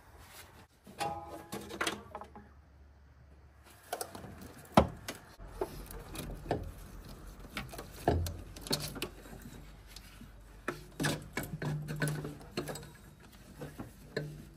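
Hand tools working on engine parts: scattered metallic clinks, knocks and short rattling runs. The loudest single knock falls about five seconds in, and there is a brief gap of near silence about two seconds in.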